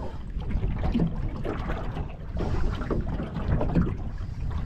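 Wind buffeting the microphone in a low, steady rumble, with small waves slapping and splashing against the side of a small open boat.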